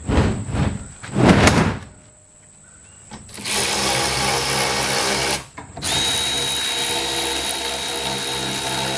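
A few knocks as the plastic IBC tote is handled, then a handheld power tool runs in two long stretches, about two seconds and then three and a half seconds, the second with a steady high whine.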